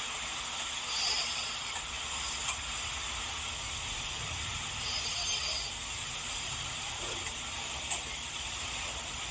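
Steady hiss with five short, sharp clicks scattered through it and a couple of faint, high chirping sounds, one about a second in and one about five seconds in.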